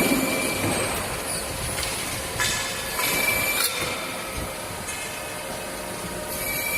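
CNC hydraulic mandrel tube bending machine running: a steady mechanical din with a thin high whine, and louder hissing stretches a few seconds in.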